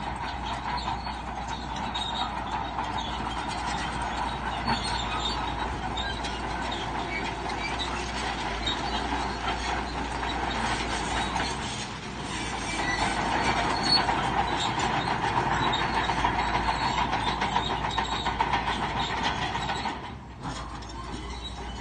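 Crawler bulldozer working, its diesel engine running under load while its steel tracks clank and squeal; it grows louder about halfway through and eases off briefly near the end.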